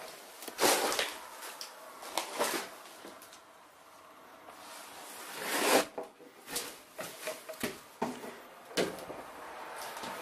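Footsteps crunching and scraping on a floor littered with debris, in irregular bursts with small clicks between them; the loudest crunches come about half a second in and again about six seconds in.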